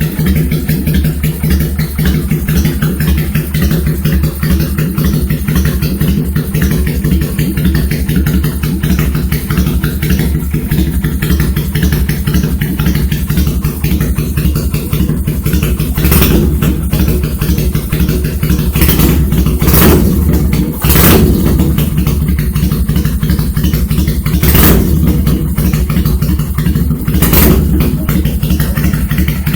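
Kawasaki Vulcan 400 Classic V-twin idling through uptrumpet mufflers with the silencers removed, modified to a loping three-beat idle. A few brief throttle blips come in the second half.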